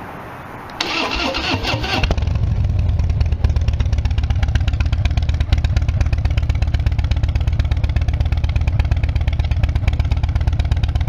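2016 Harley-Davidson Dyna Wide Glide's Twin Cam V-twin, fitted with Vance & Hines Big Radius exhaust, being started: the starter cranks for about a second, then the engine catches and settles into a steady idle. The exhaust pulses are loud and rapid.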